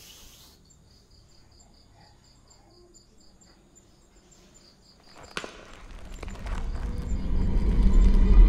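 A cricket chirping faintly and evenly, about four chirps a second. A little after five seconds a sharp click, then a low drone from the horror score swells steadily louder to the end.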